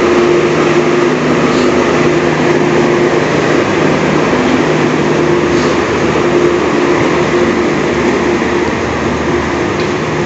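Indonesian diesel-hauled passenger train pulling slowly out of the station: a steady engine hum with the rumble of wheels on rails.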